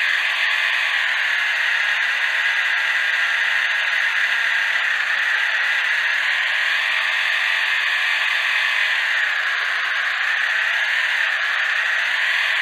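Stock motor and gearbox of a 1:32 Orlandoo Hunter RC crawler whining steadily as it drives, heard close up from the camera mounted on the car; the pitch sags and rises slightly a few times.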